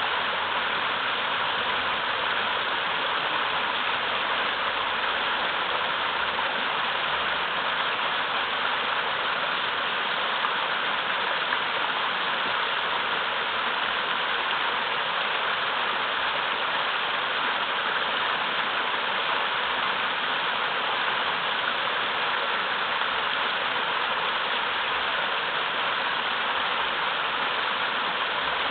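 Small waterfall on a mountain river, water rushing fast over large boulders in a steady, unbroken splashing rush.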